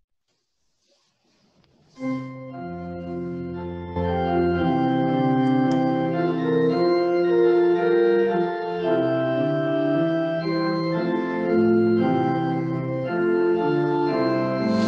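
Organ music: after about two seconds of near silence, slow sustained chords begin, growing louder about four seconds in and holding steady.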